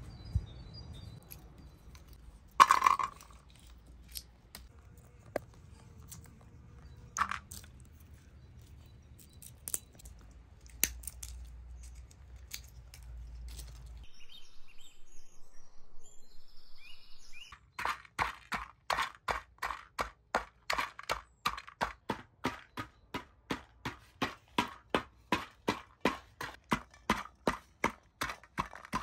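Scattered knocks and clinks of kitchen work. Then, from a little past halfway, a steady run of crisp knife strokes on a cutting board, about three a second, like chopping ingredients.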